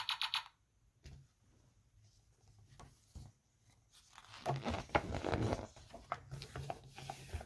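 The last half second of a rapidly pulsing electronic sound effect from the book's sound chip. Then faint clicks, and from about four seconds in, paper and cardboard rustling with small ticks as a page of the sound book is handled and turned.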